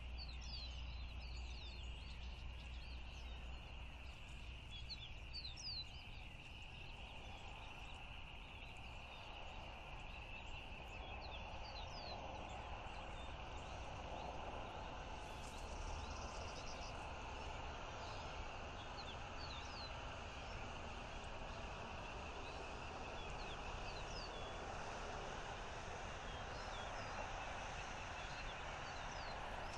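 Outdoor ambience: small birds chirping in many brief, high notes scattered throughout, over a steady hiss and a low rumble.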